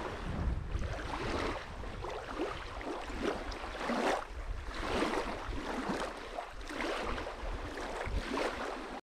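Small river waves lapping on a sandy shore, a soft wash about once a second, with wind rumbling on the microphone.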